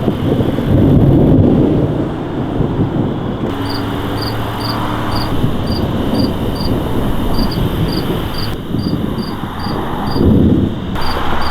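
Thunder rumbling low and heavy, loudest in the first couple of seconds and swelling again near the end, with crickets chirping in a steady pulse of about two chirps a second.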